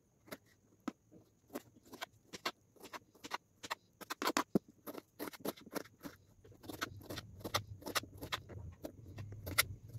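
Kitchen knife dicing a tomato on a plastic cutting board: a run of sharp, uneven knife taps on the board, about three a second.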